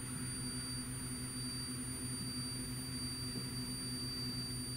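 Digital Compact Cassette playing in a Victor ZD-V919 deck: the tape transport runs with a low steady hum, and over it sits a thin, steady high-pitched tone. This is the squeal of the stick-slip effect, caused by a dirty or dried-out felt pad in the cassette and not by the player.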